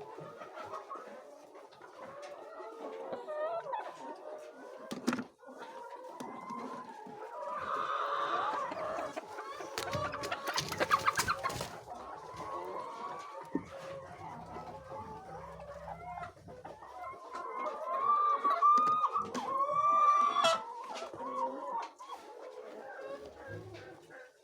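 A flock of laying hens clucking continuously, with a longer, louder call near the end.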